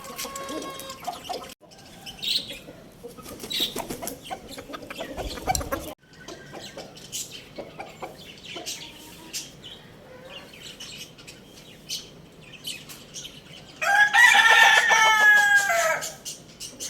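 Chickens clucking with small birds chirping and scattered clicks, then a rooster crows once near the end, a loud call of about two seconds.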